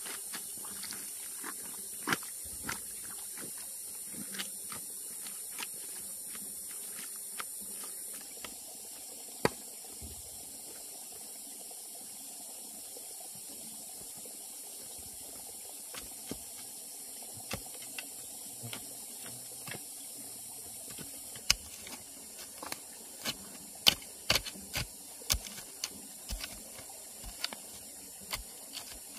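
A steady high hiss with scattered sharp knocks; from about two thirds of the way in the knocks come thick and fast, two or three a second.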